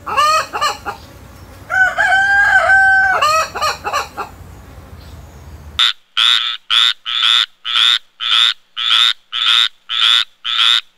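Chickens clucking, with a rooster crowing once, a single held call about two seconds in. About six seconds in the sound cuts to a tree frog calling: a fast, even series of short croaks, about two a second.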